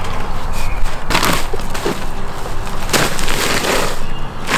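A treated wooden landscape timber scraping and grinding on the gravel bed of its trench as it is worked into place, giving a few harsh crunching scrapes about a second in and about three seconds in.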